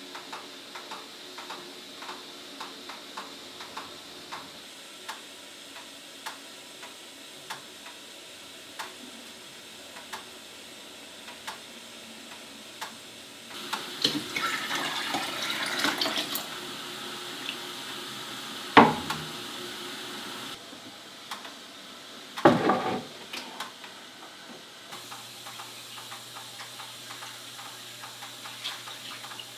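Water pouring and splashing for about two and a half seconds midway, then two sharp knocks a few seconds apart, over a steady faint ticking.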